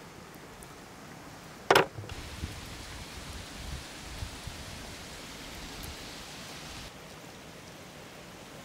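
Raw catfish being threaded onto flat metal skewers on a wooden board: one sharp, loud knock just under two seconds in, then a few soft low knocks from the handling, over a steady outdoor hiss.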